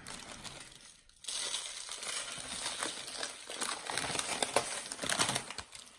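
Rustling and light clinking as a whole rub-coated pig leg is lifted and turned over on a wire cooling rack over parchment paper. It starts about a second in and runs as a dense crackle of small clicks until just before the end.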